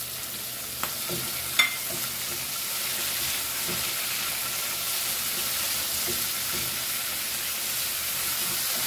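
Chopped onion, tomato and green chillies sizzling in hot oil in a non-stick kadai while being stirred with a silicone spatula. The sizzle grows slightly louder, and there is one sharp knock about a second and a half in, with a lighter one shortly before it.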